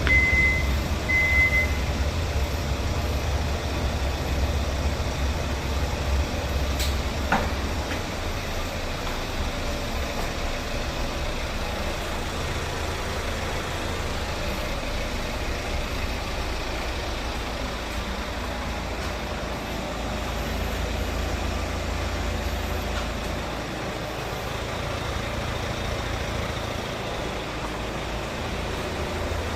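Steady low rumble of a running vehicle, with two short high-pitched beeps at the start and a single sharp click about seven seconds in.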